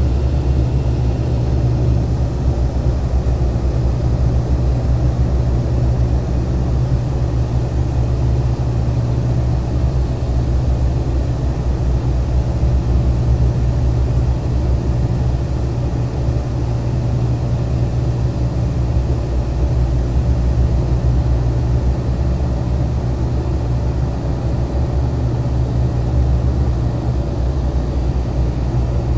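Dash 8-100 turboprop engines and propellers droning, heard inside the cabin beside the propeller: a loud, steady low hum with a deep, even propeller tone.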